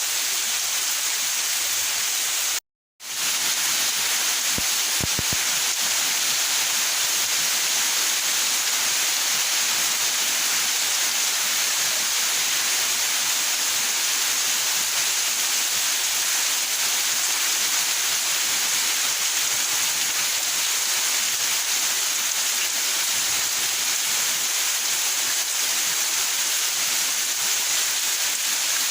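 Steady rain falling in a backyard, an even hiss. The sound cuts out completely for a moment about three seconds in, then returns unchanged.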